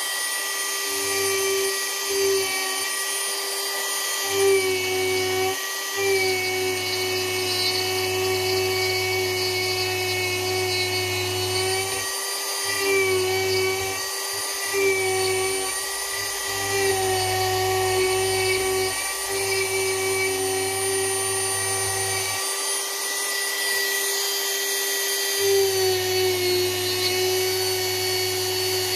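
Dremel rotary tool running at high speed as its bit carves wood, a steady high whine whose pitch sags briefly now and then as the bit bites in.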